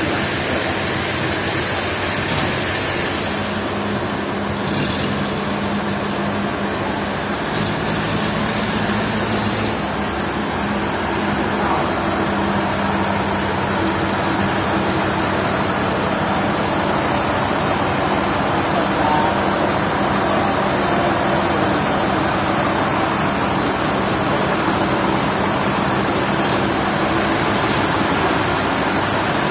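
Sawmill machinery running steadily: a continuous engine or motor hum under a broad noise, shifting slightly in pitch a few seconds in.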